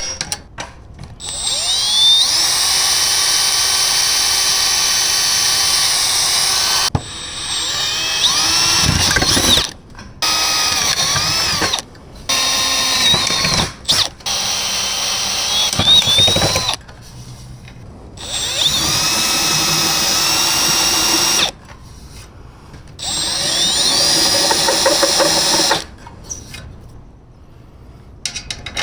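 Power drill run in repeated bursts of one to five seconds, several of them spinning up with a rising whine, stopping and starting again.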